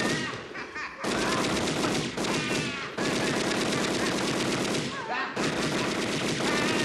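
Tommy gun firing long, rapid bursts, breaking off briefly about half a second in and again about five seconds in.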